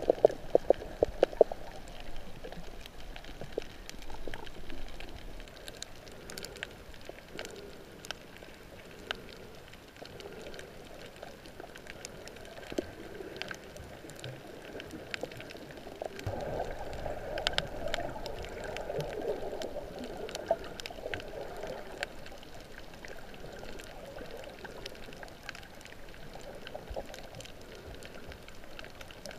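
Water heard through a camera held underwater: muffled swishing and gurgling with scattered faint clicks, the gurgling growing louder from about sixteen to twenty-two seconds in.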